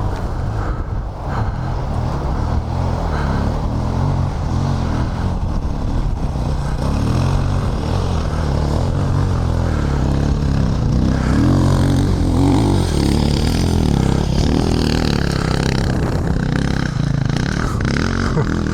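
Single-cylinder dual-sport motorcycle engine running hard under load on a steep, loose, rocky hill climb, with the throttle rising and falling. It gets a little louder about halfway through.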